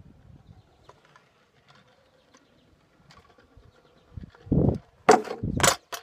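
Kick scooter rolling over concrete, faint at first. Near the end it comes close past the microphone with a few loud scuffing rushes of wheels and a foot pushing off the ground.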